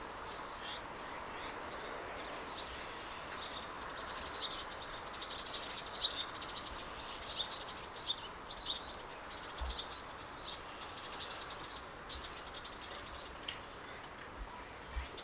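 Small birds chirping and twittering in quick, busy clusters that start a few seconds in, over a steady background noise.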